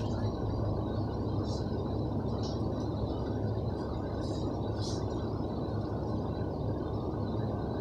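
Steady shop background noise: a low hum with an even rushing under it, and a few faint, brief high chirps.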